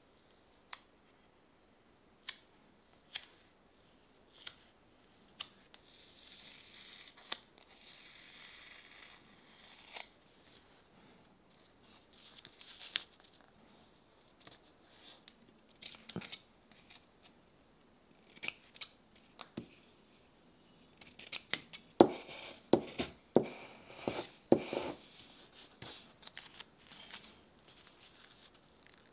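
Scissors snipping a paper shoe pattern, with paper being handled. Scattered single snips and clicks, some paper rustling a few seconds in, then a quick run of snips about three-quarters through.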